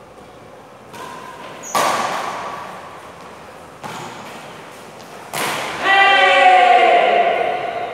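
Badminton rackets striking a shuttlecock during a doubles rally, four sharp hits about one and a half to two seconds apart that echo in the hall. Near the end a loud, drawn-out shout follows.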